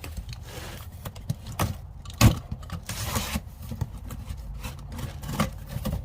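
A box of wrenches being opened and its packaging and tools handled: a series of irregular knocks, clicks and light clinks, the loudest about two seconds in, over a steady low hum.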